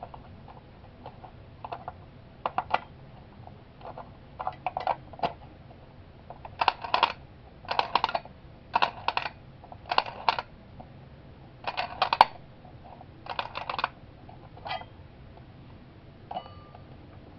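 Clockwork spring motor of a 1962 Marx Lumar wind-up toy phonograph being wound by hand, its mechanism clicking in short runs of rapid clicks about once a second, one run per turn of the hand.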